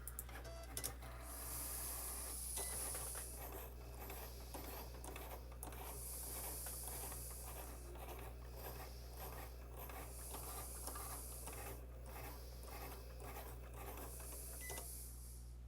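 Cricut cutting machine running a cut, its motors whirring in passes that swell and fade every few seconds, with many small clicks as the carriage and blade move.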